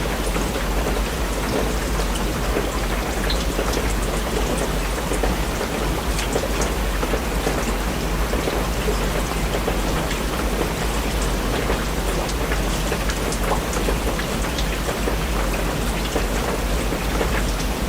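Steady rain falling, an even hiss full of small drops ticking, over a constant low rumble.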